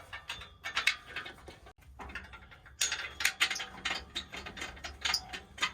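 Ratchet wrench clicking in quick runs as nuts are run onto a catalytic converter's bolts under a truck, with short pauses between runs.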